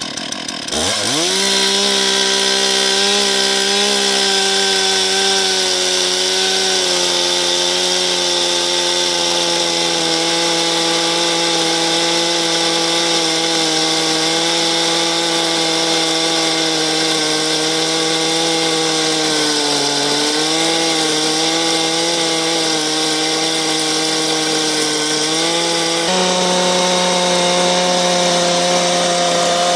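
Chainsaw revving to full throttle about a second in, then running steadily as it rips lengthwise through an elm log to cut a slab. The engine note sags briefly about two-thirds of the way through and steps up again near the end.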